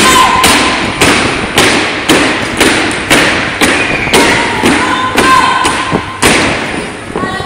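Drill team stamping their boots in unison while marching with high kicks on a gym floor: loud, sharp stomps in step about twice a second, each with a short echo in the hall. The stomps grow softer near the end.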